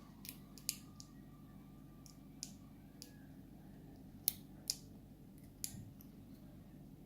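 Light, sharp metallic clicks and taps at irregular intervals, the loudest two about four seconds in, half a second apart: small lock pins, springs and tools being handled while a pin-tumbler lock is taken apart.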